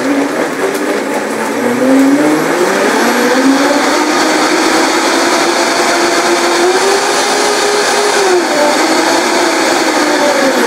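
High-performance blender motor running at full speed, pureeing hemp seeds, pine nuts and water into a smooth, thin sauce. Its loud whine climbs in pitch over the first couple of seconds, wavers and steps up and down as it runs, and begins to wind down right at the end.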